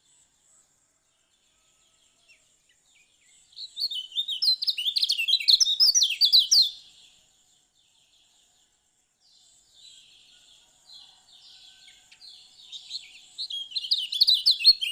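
Kecial kuning (a small white-eye) singing: two bouts of rapid, high twittering song, the first beginning a few seconds in and stopping after about three seconds, the second starting softly after a pause and growing loud toward the end.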